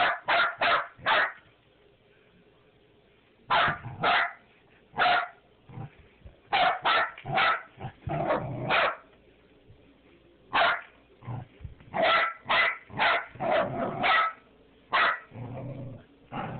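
Puppy barking in short, sharp yaps, mostly in quick runs of three to five with pauses of a second or two between them.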